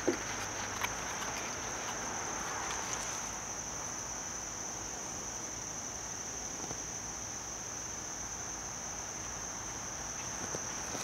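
Steady high-pitched chorus of insects, with a few faint clicks over it.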